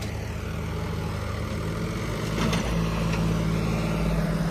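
Heavy diesel tractor engines running steadily under load in a tochan tug-of-war pull. The engine note shifts about two-thirds of the way through.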